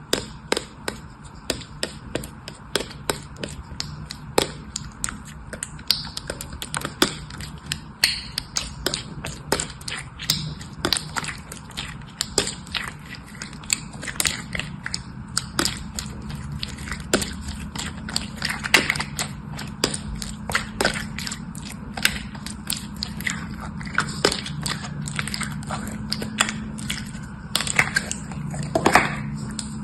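Crisp clicks and crackles of something being pressed and worked by hand, two or three a second, over a low steady hum.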